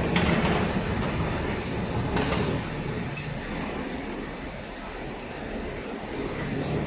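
Steady mechanical rumble with a few sharp metallic clinks and knocks, the clearest one about two seconds in.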